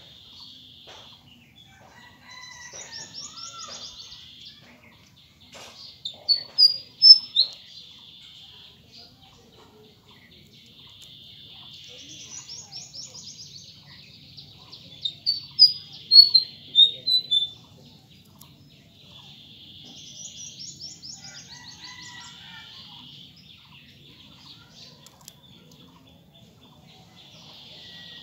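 High-pitched chirping calls: a buzzy trill that returns every several seconds, with two runs of loud, sharp, quick chirps.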